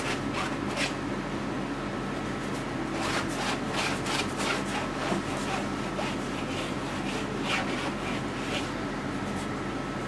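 Oil paint being worked onto a stretched canvas with a painting tool: a run of short rubbing, scraping strokes, busiest a few seconds in, over a faint steady hum.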